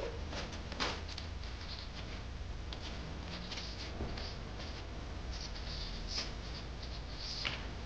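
Scattered light scrapes and clicks over a steady low hum, with sharper clicks about a second in and near the end.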